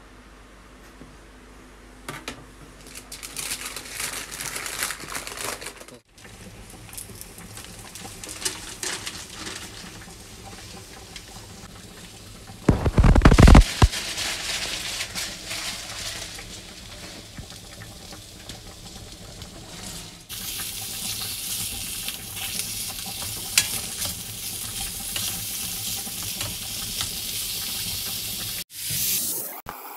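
Diced cured pork frying in a stainless steel pan, sizzling, with tongs stirring it; the sizzle gets louder about twenty seconds in. A loud thump about thirteen seconds in.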